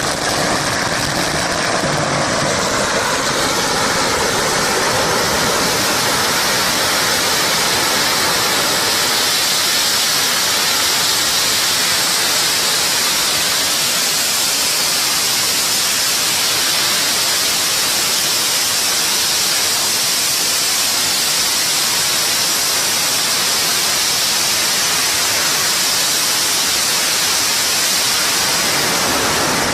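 A long string of firecrackers going off without a break, the bangs so dense that they merge into one steady, loud crackling hiss.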